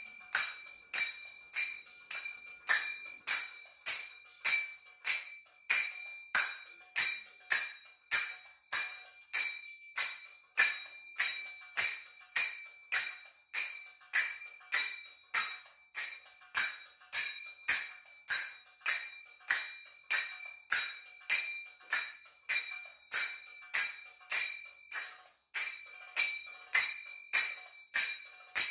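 Finger cymbals (zills) struck in a steady, even rhythm of about two strikes a second, alternating right and left hands. Each strike gives a bright metallic ring that dies away quickly.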